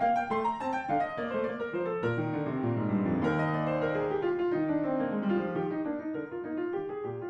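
Classical keyboard music: quick, clearly struck notes, with a run that falls in pitch around the middle.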